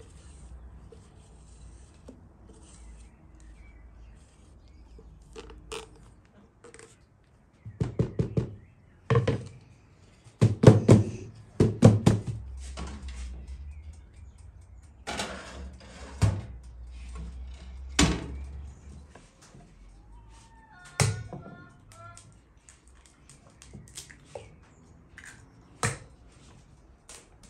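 Kitchen handling noises: a run of knocks and thuds as a round cake pan of batter is handled and put into a countertop electric oven. A low steady hum runs for several seconds in the middle, and a few lighter taps come near the end.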